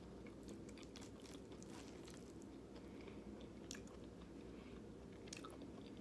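Faint, close-up chewing of a mouthful of chili and rice: soft wet mouth clicks, with a couple of sharper clicks near the middle and toward the end.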